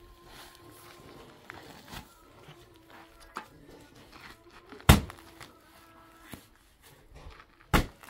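A shovel blade chopped down into a paper cement bag lying on a sand pile, splitting it open: two sharp thuds about three seconds apart, the first the louder, with lighter knocks and scrapes of the bag and shovel between.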